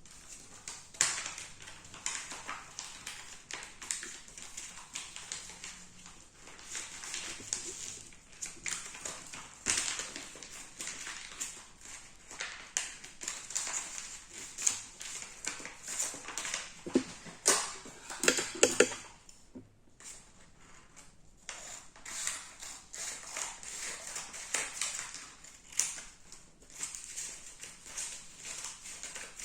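A sheet of A4 paper being folded and creased by hand: irregular rustling and crinkling with light taps, briefly louder a little past halfway.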